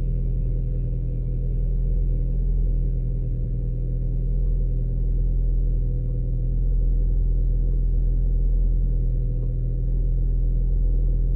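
Audi 1.8T turbocharged four-cylinder engine idling steadily after a cold start, with a misfire.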